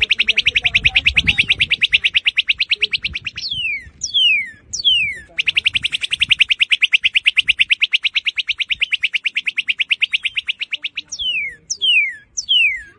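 Northern cardinal singing: a very fast trill of even notes for about three seconds, two clear down-slurred whistles, a second fast trill lasting about six seconds, then three more down-slurred whistles and a short trill near the end.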